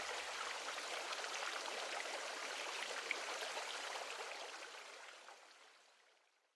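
Recorded water ambience, a steady hiss with scattered droplet-like ticks, fading out to silence about five to six seconds in.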